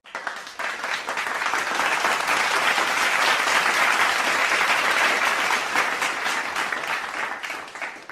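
Crowd applauding: dense clapping that comes in at once, holds steady, then thins and dies away near the end.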